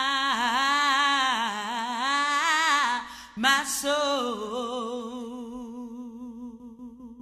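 A woman's solo voice singing slow a cappella gospel, drawing a single syllable out in long melismatic runs with wide vibrato. About three and a half seconds in there is a short breathy break, then a softer held note that fades away near the end.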